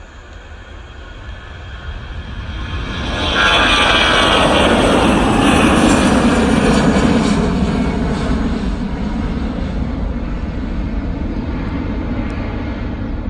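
Airliner engines at high power as the aircraft passes, most likely on its takeoff run. The sound builds, is loudest about three and a half seconds in, then slowly fades.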